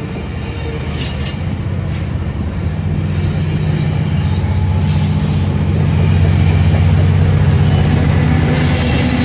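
Sounder commuter train's bilevel passenger coaches rolling past at close range: a steady low rumble that grows louder, with a few wheel clicks early and a faint high wheel squeal around the middle.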